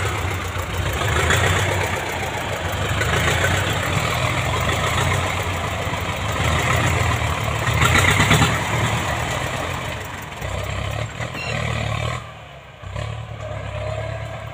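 Ford 6610 tractor's four-cylinder diesel engine working hard under load as the tractor pushes through brush, with louder surges about a second in and about eight seconds in, the second one coming with a puff of black smoke. The engine eases off near the end.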